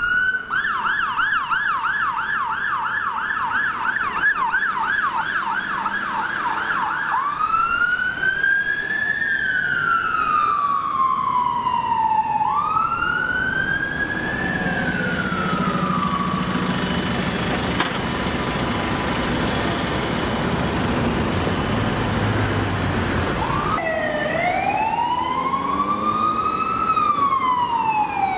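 Electronic sirens of London Fire Brigade fire engines on an emergency run. A fast yelp for the first seven seconds or so switches to a slow wail that rises quickly and falls slowly. Through the middle the wail fades under heavy engine and road noise as the vehicles pass, and near the end two sirens wail out of step with each other.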